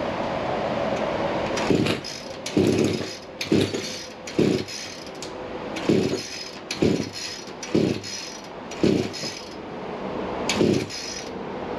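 Echo SRM-266T string trimmer's two-stroke engine being pull-started on a freshly replaced carburetor: about nine quick rasping pulls of the recoil starter, roughly one a second, without the engine catching.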